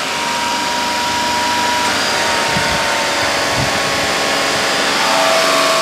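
Car engine running steadily at raised revs, around 3000 RPM, with the belt-driven air-conditioning compressor switched on under load. It gets a little louder near the end.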